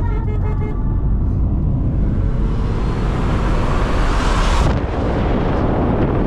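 Car driving, with heavy road and wind rumble on the microphone. A rushing hiss builds over the first few seconds and cuts off suddenly about two-thirds of the way through. Music fades out in the first second.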